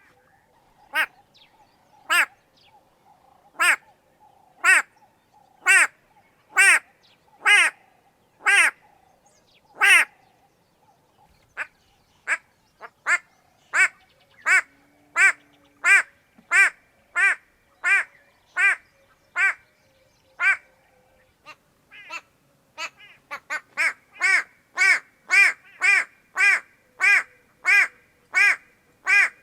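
White-bellied go-away-bird giving a long series of repeated "go-away" calls, short loud notes about one a second at first, coming faster toward the end at about two a second.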